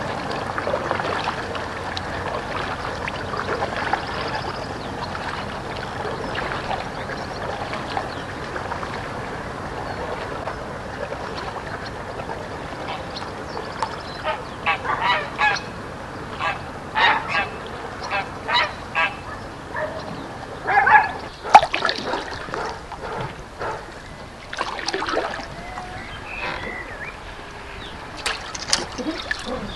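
Geese honking: a run of short separate calls that starts about halfway through and is loudest a little past two-thirds of the way.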